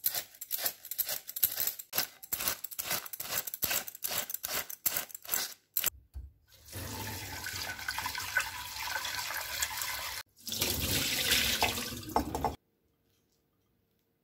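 A metal potato peeler rasping down a head of cabbage in quick strokes, about three a second, to shred it. Then, about six seconds in, cold tap water runs into a glass bowl of shredded cabbage being rinsed by hand, until the water cuts off near the end.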